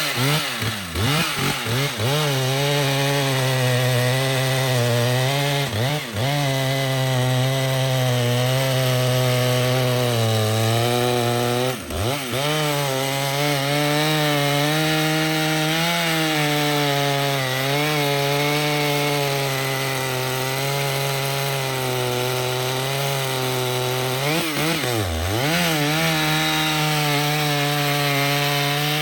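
Stihl chainsaw running at high revs, cutting through a tree trunk in a long steady cut. Its pitch dips sharply and recovers a few times, about a second, six, twelve and twenty-five seconds in.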